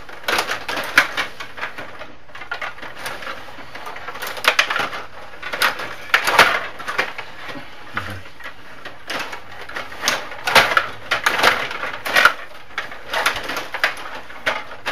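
Stiga Stanley Cup rod hockey game in fast play: a steady run of irregular plastic clacks and rattles as the rods are pushed and spun, the players strike the puck and the puck hits the boards.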